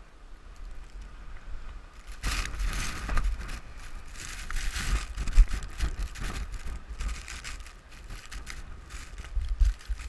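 Blizzard wind gusting against the camera microphone: a low buffeting rumble with a hiss of blowing snow. It picks up sharply about two seconds in and rises and falls in gusts.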